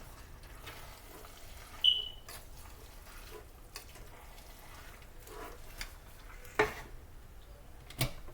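Kitchen cookware sounds: a short ringing clink about two seconds in and a couple of sharp knocks near the end, over a faint steady hiss.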